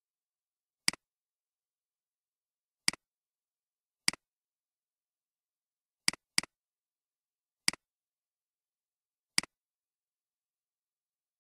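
Computer mouse clicks: seven single sharp clicks spread over about nine seconds, two of them close together as a double click about six seconds in, each a press followed by a fainter release.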